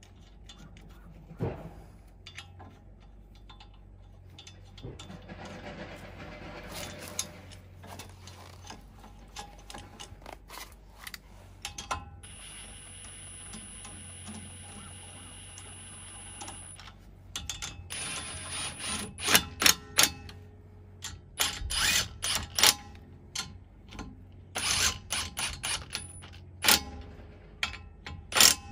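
HiKOKI 36V MultiVolt cordless impact wrench (WR36DC) fastening wheel-spacer nuts on a car hub. Light metal clinks come first; about midway the wrench runs a nut on with a steady whine for a few seconds, and in the second half short loud bursts of impact hammering tighten the spacer's nuts.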